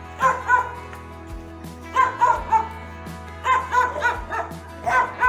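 A dog yipping and barking in short bursts of several quick yips, a burst about every second and a half, over a steady low hum.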